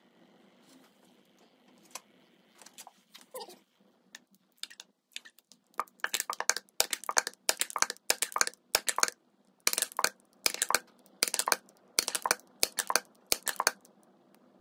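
Hand-operated fluid pump squirting a thin mix of used motor oil and WD-40 into a gearbox: after a few scattered clicks, a short crackling spurt with each stroke, about one every 0.7 seconds from about six seconds in.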